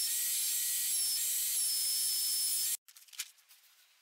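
Bench belt sander running with a small padouk wood block held against the belt: a steady high hiss with a thin whistling tone that comes and goes. It stops abruptly about three seconds in, leaving near silence with a few faint ticks.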